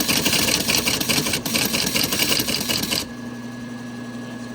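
Teletype Model 33 KSR printing: a rapid, steady clatter of the typing mechanism that stops suddenly about three seconds in, leaving a steady hum.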